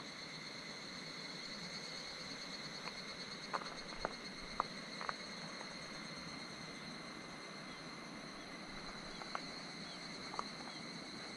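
Faint, steady chorus of insects singing at several high, unchanging pitches, with a few short clicks scattered through it.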